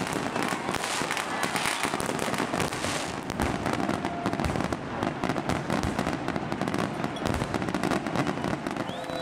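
A fireworks display going off with rapid crackling and popping. From about three seconds in, several deeper booms of bursting shells come through.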